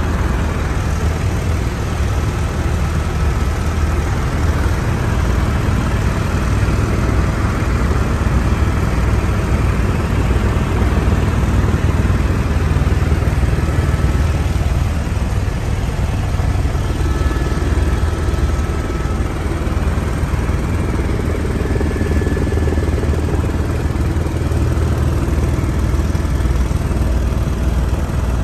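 Helicopter engine and rotor noise heard from inside the cabin in flight: a loud, steady, deep drone that does not change.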